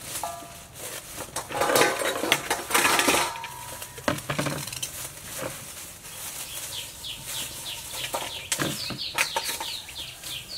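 Food-preparation handling noise at a table: plastic bowls, a bag and utensils clattering and rustling, loudest for a couple of seconds about two seconds in. From about six seconds in, a run of quick high bird chirps repeats several times a second.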